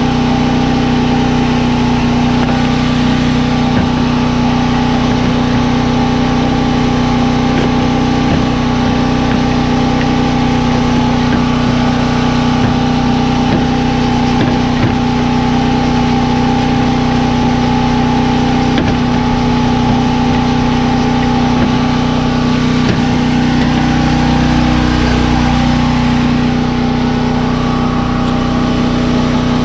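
A machine running steadily at constant speed: an even, loud drone with a fixed pitch and a few faint ticks over it.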